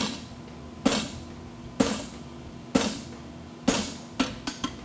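Hammer blows on a punch driven into a red-hot bar of 1-inch A36 steel on the anvil, punching the eye of a fuller. Five heavy blows come about a second apart, each ringing briefly, then three lighter, quicker taps near the end.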